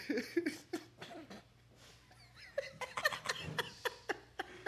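Men laughing and chuckling in short bursts, mixed with several sharp clicks and knocks, most of them in the second half.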